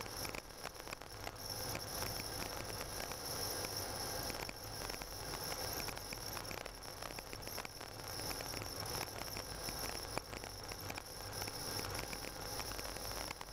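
Car driving along a snow-covered road, heard from inside the cabin: a low steady road and engine rumble with many small crackles from the tyres on snow, over a steady high-pitched hiss.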